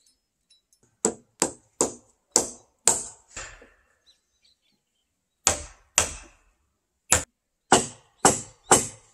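Hammer blows on timber roof framing, a sharp ringing strike about every half second: six in a row, a pause, two more, then four more near the end.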